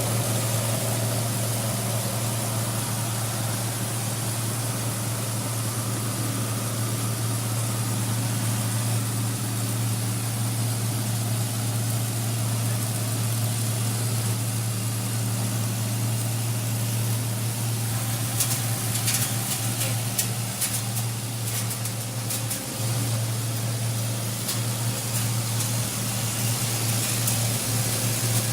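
Coffee pulping machine running with a steady motor hum, and a spell of sharp rattling clicks about two-thirds of the way through.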